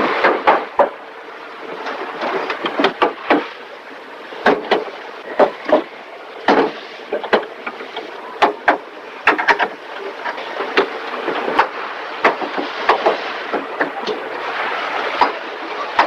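Car assembly-line clatter: irregular sharp metal clanks and knocks, a few each second, over a steady background of factory noise.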